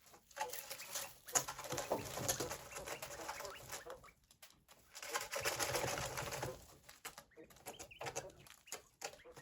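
Coturnix quail calling, in two stretches, the second starting about halfway through.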